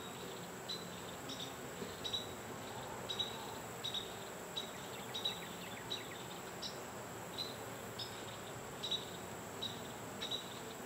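A cricket chirping in a steady rhythm, about three short chirps every two seconds.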